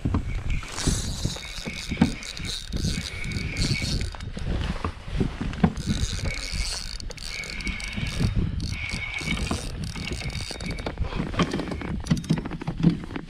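Pedal-drive kayak's gear drive whirring and clicking in repeated stretches as it is pedalled, over low rumbling wind and water knocks on the action-camera microphone.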